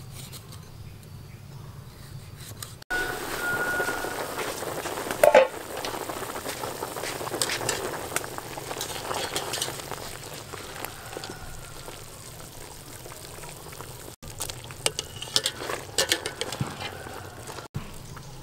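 Water boiling hard in a pot of pork pieces, a steady bubbling hiss that starts suddenly about three seconds in. A wire skimmer stirring the pot knocks sharply on the metal once, about five seconds in. Near the end, scattered metal clinks as a strainer of boiled meat is handled over the pot.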